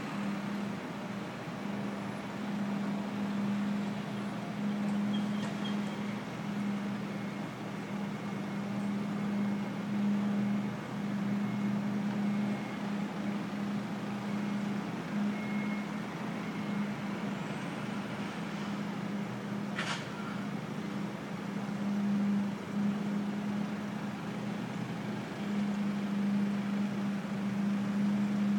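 A steady, low mechanical drone from running machinery, like an idling engine, that wavers slightly over a haze of city background noise. A single sharp click comes about twenty seconds in.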